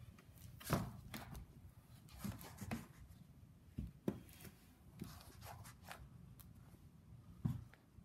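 Soft irregular thumps and scuffs of someone stepping into black rubber clogs on a wooden floor, with a louder knock about a second in and another near the end.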